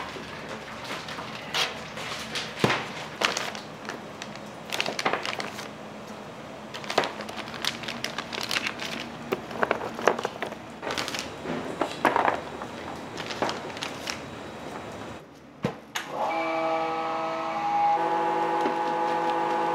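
Irregular clicks, knocks and clatter of utensils and cookware at work in a restaurant kitchen. About sixteen seconds in it stops and a steady chord of held tones takes over, shifting about two seconds later.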